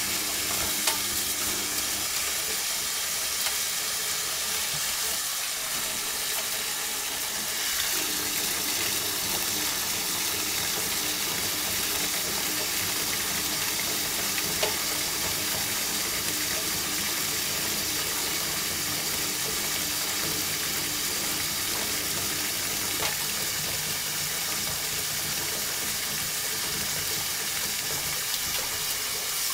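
Kitchen tap running steadily into a stainless steel sink, the stream splashing onto a bathing African grey parrot's feathers: an even, hissing rush of water.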